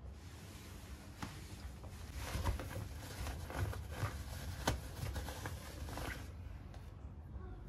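Bed sheet fabric rustling and swishing as a fitted elastic-band sheet is pulled and tucked over a mattress corner, busiest in the middle, with a few sharp clicks among the rustle.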